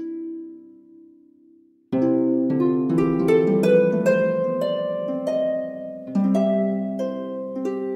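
Gentle instrumental music: a held chord fades away over about two seconds, then plucked notes come in suddenly, louder, and run on as a flowing melody over sustained chords.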